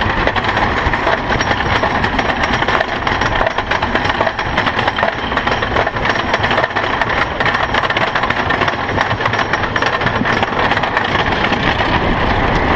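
Wooden roller coaster train being pulled up the chain lift hill: a steady, dense clatter of the lift chain and the anti-rollback ratchet clicking under the cars.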